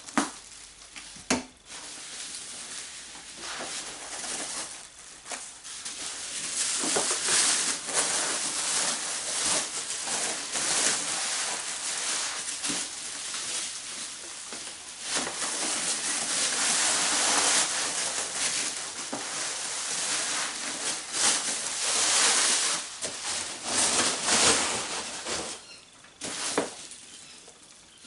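Parcel wrapping being torn and rustled by hand as a package is unwrapped, crinkling irregularly and continuously, easing off near the end.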